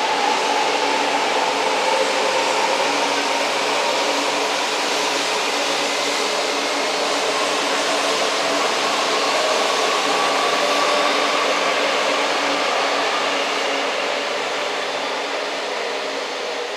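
Coupled E4 series double-deck Shinkansen trainsets (16 cars) pulling out and accelerating: a steady rush of rolling noise with a faint whine that slowly rises in pitch, easing off a little near the end.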